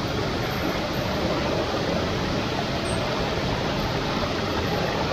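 Shallow rocky stream rushing steadily over stones close to the microphone.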